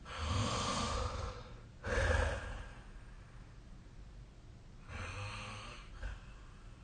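A sleeping person breathing noisily in snoring breaths: a long breath at the start, a shorter one about two seconds in, and another about five seconds in, with quiet between.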